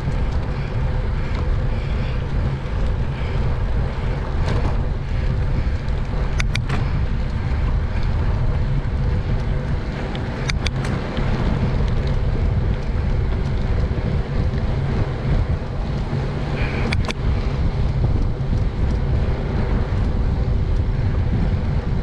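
Steady wind rush and low road rumble on a bike-mounted action camera's microphone while riding a bicycle on a paved path, with a few sharp clicks spread through.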